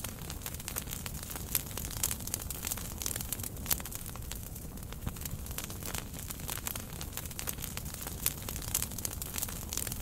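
Split firewood burning in a campfire, crackling with many irregular sharp pops and snaps over a low, steady rush of flame.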